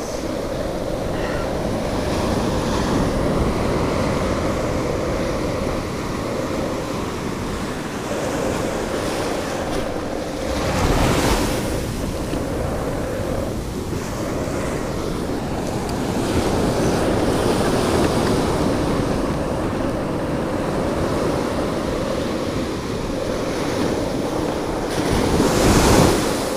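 Surf washing and breaking on a sandy beach, a continuous rush that swells louder about eleven seconds in and again near the end, with wind buffeting the microphone.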